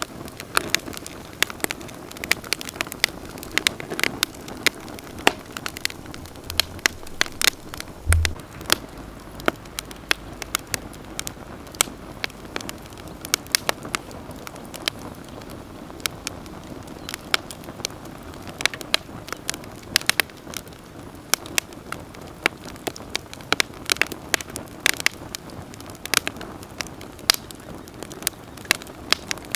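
Wood campfire crackling: irregular sharp snaps, several a second, over a steady low hiss of burning.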